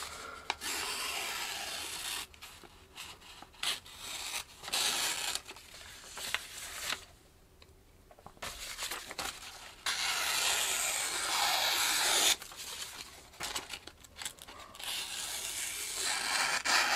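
Freshly Scandi-sharpened Mora Companion knife slicing through sheets of printer paper, a sharpness test, in several slicing strokes with a short pause about halfway through.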